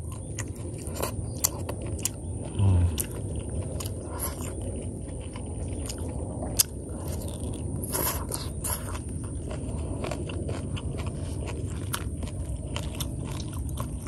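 Close-up eating sounds: chewing, biting and lip smacks as a person eats meat off small bird bones with rice, with many small clicks and scrapes from fingers picking at the food. There is one brief low voiced hum about three seconds in.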